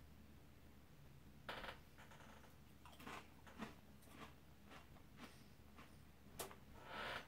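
Faint crunching and chewing of thin, crisp Ritz Tabasco Crisp & Thins crackers: a handful of short, soft crunches spread about a second apart, with a slightly longer hiss near the end.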